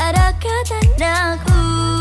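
A young girl singing a pop song into a handheld microphone over a backing track, with a deep drum beat hitting three times under steady bass notes.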